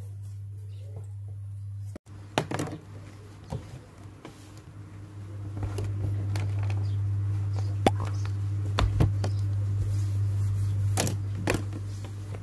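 Handling sounds of a phone, tablet and pen on a wooden desk: scattered sharp taps and knocks, a cluster about two seconds in and several more in the second half, over a steady low hum.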